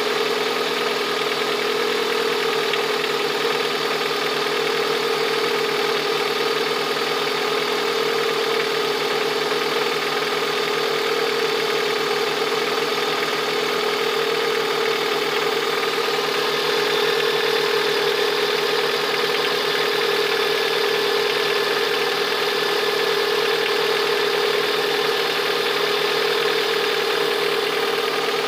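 Lada VAZ-21126 1.6-litre 16-valve four-cylinder engine idling steadily with a knock whose cause is unknown to the owner.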